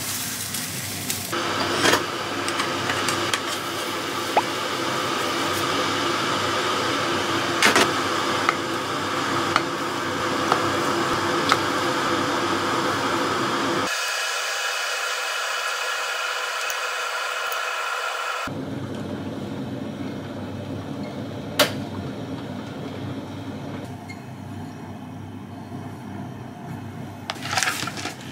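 Egg omelette sizzling in a nonstick frying pan, with sharp clicks of the turner against the pan. In the second half come quieter kitchen clinks of chopsticks against a plate.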